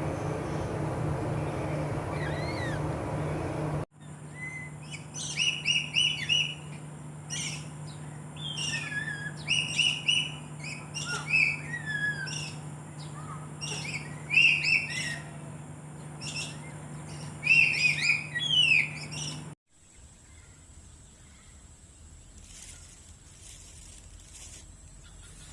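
A steady low mechanical hum for about the first four seconds. Then, after an abrupt cut, birds chirp and whistle in short repeated calls for about fifteen seconds. They stop abruptly, leaving a faint quiet background.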